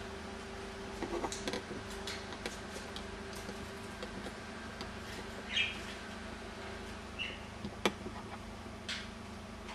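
Budgerigars giving a couple of short chirps a little past halfway, among scattered light clicks and taps.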